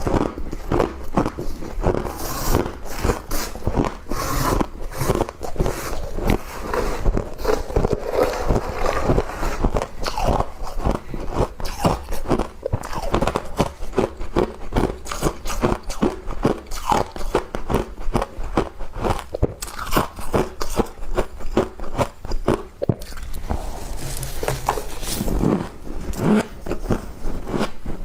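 Frost being bitten and chewed, a dense run of crisp crunches throughout.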